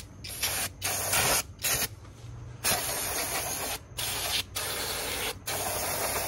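Aerosol can of brake cleaner spraying in about seven hissing bursts, some short, some a second or so long, with brief pauses between them.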